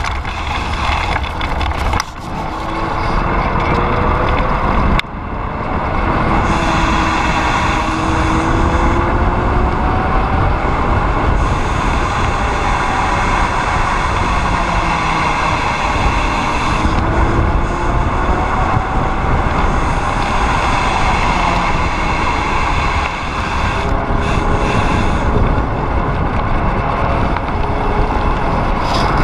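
Wind rushing over the camera microphone and tyres rolling on gravel and asphalt as a Kellys Splash mountain bike coasts downhill, with faint wavering whines underneath. The noise breaks off briefly about two and five seconds in.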